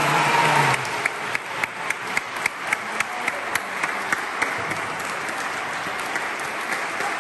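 Concert audience applauding. In the first second the ensemble's last chord is still dying away, and from about a second in one nearby clapper claps loudly at about four claps a second for a few seconds before blending into the general applause.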